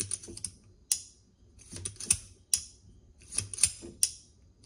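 Sharp metallic clicks from the action of an unloaded Uberti-made Model 1873 single-action .357 Magnum revolver as its cylinder and ejector are worked by hand, coming singly and in small clusters about every half second to a second. The action runs smoothly, with no hangups.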